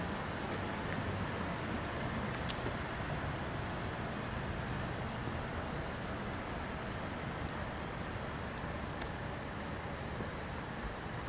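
Steady road traffic noise from passing cars, easing slightly over the stretch, with a few faint ticks.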